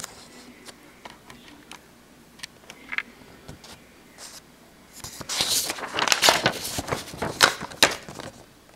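Sheets of printer paper being handled and turned: scattered light rustles and clicks, then about five seconds in a few seconds of loud, crackly paper rustling.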